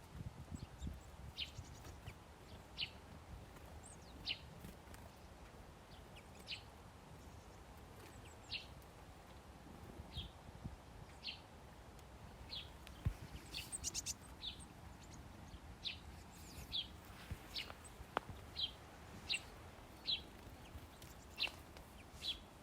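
Small songbirds chirping: short, high single chirps every second or two, coming faster in the second half, over a faint low rumble.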